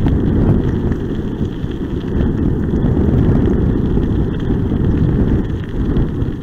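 Wind buffeting the microphone over the rumble of a kickbike's tyres rolling along a gravel road, with a few faint clicks and rattles.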